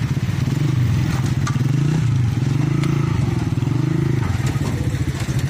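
Small motorcycle engine idling close by, its pitch rising and falling slightly, with a few light metallic clicks over it.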